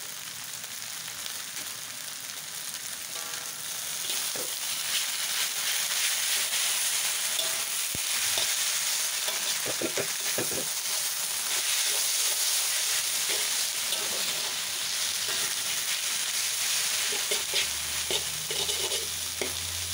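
Noodles, cabbage and bok choy sizzling in a hot wok, louder from about four seconds in, with the scattered scrape and clink of a metal spatula and fork tossing them against the wok.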